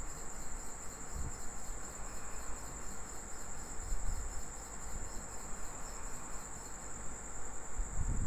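A steady high-pitched trill with a fast, even pulsing, with a few soft low thumps underneath.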